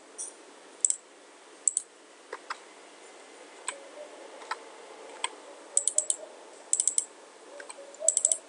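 Computer mouse clicks and keyboard key presses: single and double clicks spaced about a second apart, then quick runs of keystrokes near the end.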